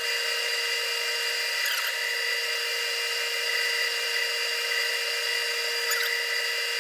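Wood lathe spinning a red oak bowl: a steady high whine of several fixed tones over an even hiss, unchanging throughout.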